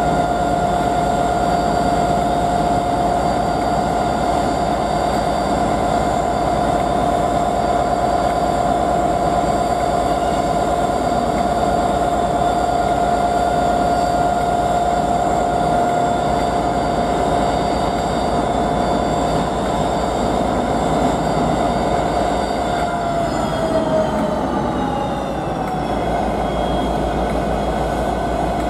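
Diesel locomotive engines running at a station platform: a steady whine over a low rumble. About 23 seconds in, the whine drops in pitch.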